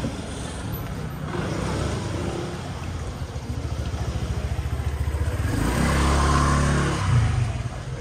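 A motor vehicle's engine running close by on a street. It grows louder and is loudest about six seconds in, then fades as the vehicle passes.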